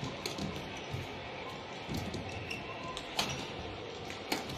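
Badminton rally: several sharp cracks of rackets striking the shuttlecock, a second or so apart, over a steady arena background hum.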